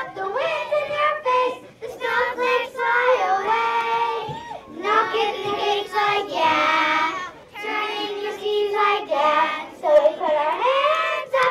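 Children singing together, a tune of held notes broken into short phrases.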